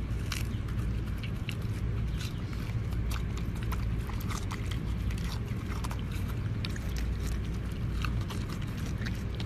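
A pig chewing watermelon open-mouthed: irregular wet smacking and crunching of the juicy flesh and rind, over a steady low rumble.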